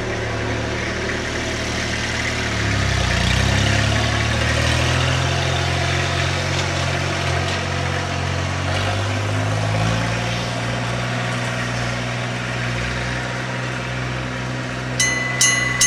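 A motor vehicle's engine running, its pitch shifting up and down a couple of times. Near the end a level crossing's electric warning bell starts up, striking rapidly at about three strokes a second with a ringing tone.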